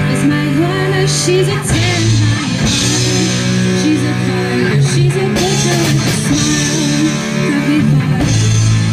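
Live rock band playing, with a female lead voice singing over electric bass, electric guitar and drums.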